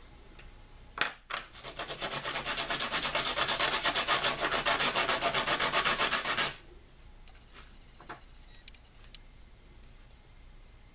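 A turkey wing bone is rubbed briskly back and forth on coarse 60-grit sandpaper, giving a rapid, even run of scraping strokes for about five seconds that stops abruptly. The sanding wears down the bone's end so it fits snugly into the larger wing bone. A couple of sharp knocks come just before the strokes begin.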